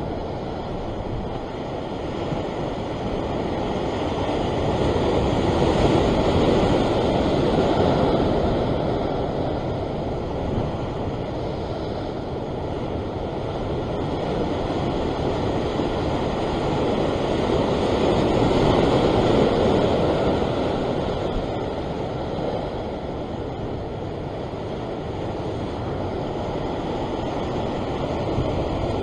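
Ocean swell surging and washing against a rock ledge, an even rush that swells louder twice, with wind on the microphone.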